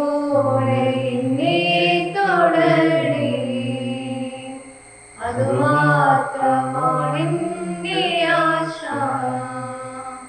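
A Malayalam communion hymn being sung, in two long phrases with a short break between them.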